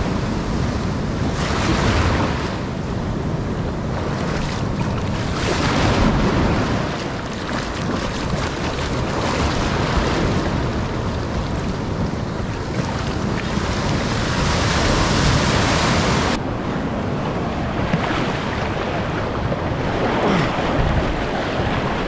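Ocean surf washing up the beach close by, swelling and receding in surges every few seconds, with wind buffeting the microphone.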